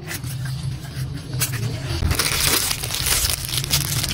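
Clear plastic wrap crinkling as a wrapped bag strap is handled, loud and dense from about two seconds in. Lighter handling and rustling comes before it.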